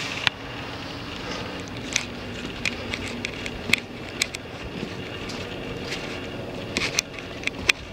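Footsteps crunching and clicking over splintered wood and rubble, a few sharp clicks scattered through and several close together near the end, over a steady low engine drone.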